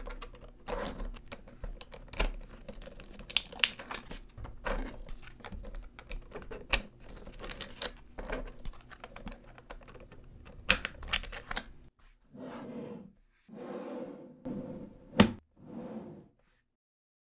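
Small neodymium magnetic balls clicking and clacking as hands press and reshape a block of them, many quick irregular clicks. About twelve seconds in the clicking gives way to a few short rubbing sounds and one sharp click.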